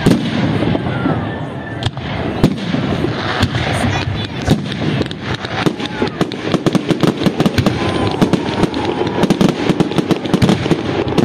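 Aerial fireworks shells bursting overhead in a series of bangs, turning into dense, rapid crackling from about halfway through.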